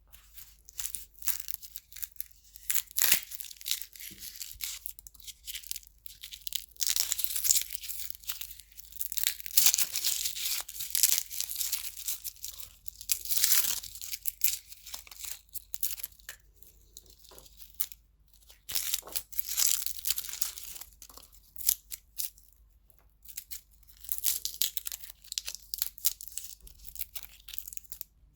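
Garlic being peeled by hand: papery skins crackling and tearing in irregular bursts, with sharp clicks as the skin cracks away from the cloves and short pauses between bursts.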